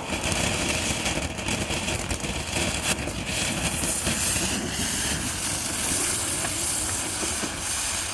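Small fountain firework spraying sparks with a steady loud hiss, broken by a few sharp pops.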